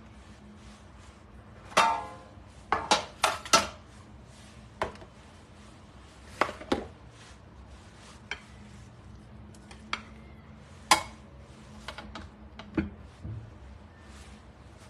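Kitchenware being handled: a square metal baking pan set down on a wooden cutting board with a short ring about two seconds in, then a dozen or so scattered sharp knocks and clinks of a glass mixing bowl and spoon.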